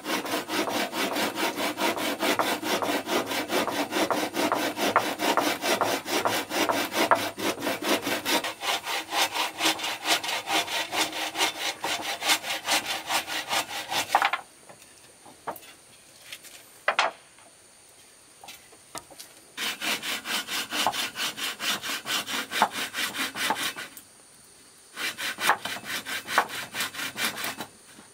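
Hand saw cutting wood in quick, even back-and-forth strokes, in three bouts. The sawing stops for about five seconds midway, when a few single knocks are heard, and again briefly near the end. The sawing sounds thinner after about eight seconds.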